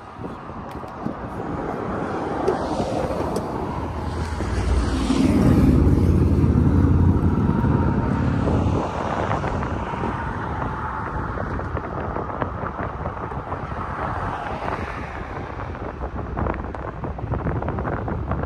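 Wind buffeting the microphone, a steady rushing noise that swells into a heavier low rumble for about four seconds from some five seconds in.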